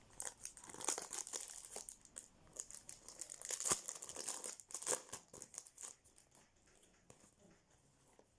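A trading card pack's wrapper being torn open and crinkled: a run of crackling rustles that dies away over the last couple of seconds.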